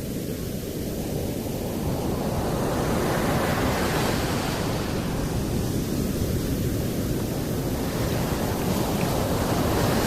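Sea surf: waves breaking and washing in, the rush swelling twice over a steady low rumble.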